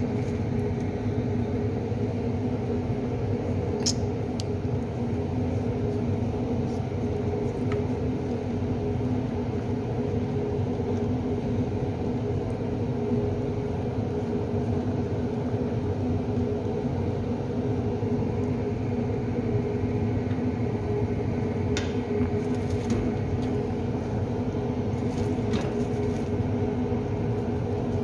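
Steady mechanical motor hum, like a kitchen appliance fan running, with a few faint clicks and taps from the leaves and utensils being handled at the pot.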